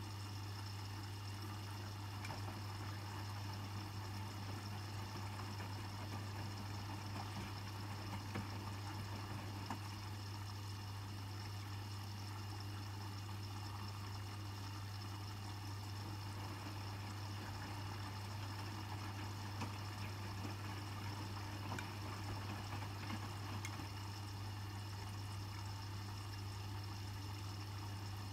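Hotpoint WMFUG 942 washing machine filling with water for a rinse: water runs steadily into the drum over a constant low hum. It is taking in water up to a high level to rinse bedding.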